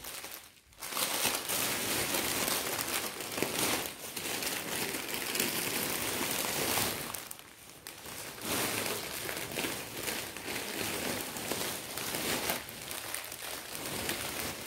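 Rustling and crinkling of sarees being pulled from a bundle and sorted through by hand, an irregular handling noise that dips briefly about half a second in and again near the eight-second mark.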